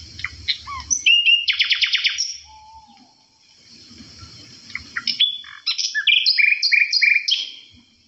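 Songbird singing two phrases of chirps and whistles: the first ends in a fast trill about a second and a half in, the second, near the end, is a run of short repeated notes.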